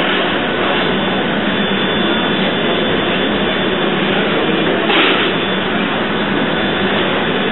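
Paddle steamer's steam engine running: a steady, dense mechanical noise from the moving cranks and rods, with a brief louder swell about five seconds in.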